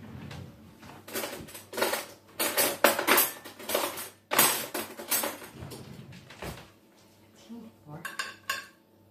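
Clattering and clinking of metal cutlery and kitchen dishes as a utensil drawer is rummaged through, busiest in the first six seconds, followed by a few lighter clinks of a utensil against the serving dish near the end.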